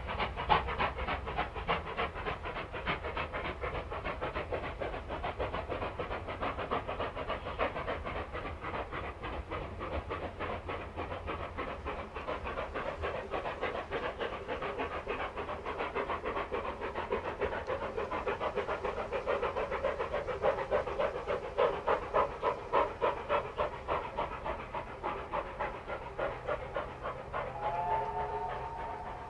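Two NSW 38 class 4-6-2 steam locomotives double-heading a passenger train, their rapid exhaust beats overlapping in a steady chatter that grows louder past the middle. Near the end a steam whistle sounds a held chord of several notes.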